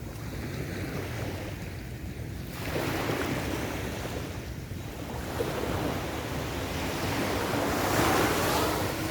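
Sea waves breaking and washing up a beach in swells: one surge about three seconds in, then a louder breaker near the end.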